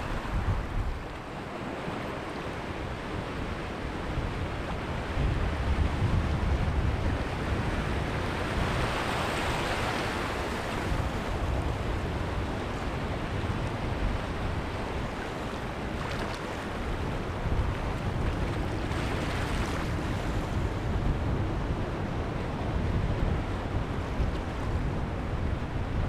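Shallow sea surf washing in over sand and around rocks at the water's edge: a steady hiss of wash, swelling as a wave surges in about a third of the way through and again past the two-thirds mark.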